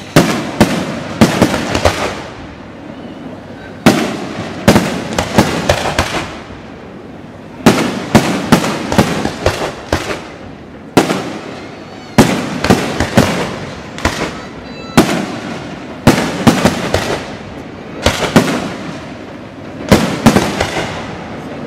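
Aerial fireworks bursting in volleys: clusters of several sharp bangs every two to four seconds, each followed by a fading rumble.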